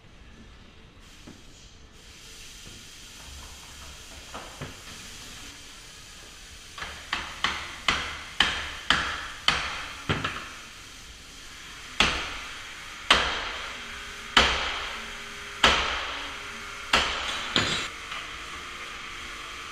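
Hammer blows on steel wedges and bar at the lock edge of a steel security door during a forced-entry leverage attack on the lock, each strike metal on metal with a short ring. After a few light knocks, a quick run of about nine blows at roughly two a second gives way to six heavier, louder blows a little over a second apart.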